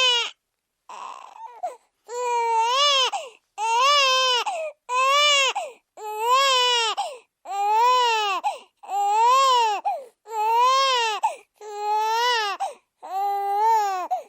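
A baby crying in a run of repeated wails, each about a second long, rising and then falling in pitch, with short gaps for breath between them.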